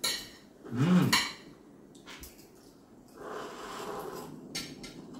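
Cutlery and plates clinking during a meal, with a short rising-then-falling hum about a second in and a soft rustle from about three seconds in.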